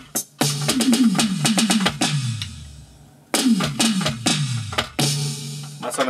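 Roland Octapad SPD-30 electronic percussion pad played with drumsticks on a drum-kit preset: two fast tom fills, each falling from high to low toms, with kick and snare hits. A cymbal rings out after the first fill.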